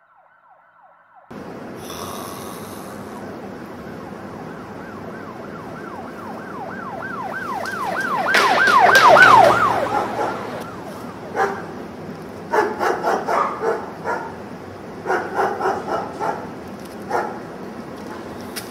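An emergency-vehicle siren in a fast up-and-down yelp, growing louder to a peak about nine seconds in and then fading, over a steady background hum. Afterwards come several clusters of short, sharp bursts.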